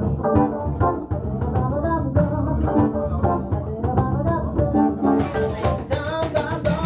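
Live band music from a jam session: instruments playing over a rhythmic bass line. About five seconds in, brighter percussion strokes come in with a regular beat.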